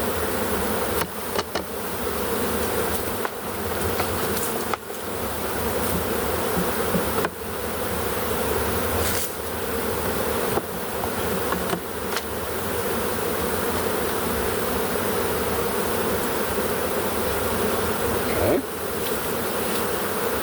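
A large swarm of honey bees buzzing in a dense, steady hum as it settles into a freshly hived box, with a few brief knocks scattered through it.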